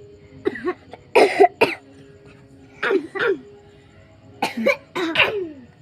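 A person coughing on purpose: short, sharp coughs, mostly in pairs, repeated several times.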